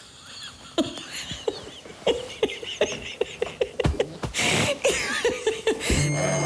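Laughter: a run of short chuckles, with music coming in near the end.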